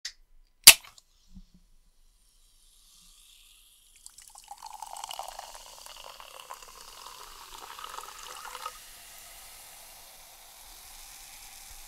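A drink can's pull tab cracked open with one sharp snap, and a few seconds later the carbonated drink fizzing and bubbling, dying down near the end to a faint hiss.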